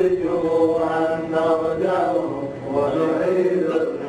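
A single voice chanting in long, held notes that slowly bend up and down.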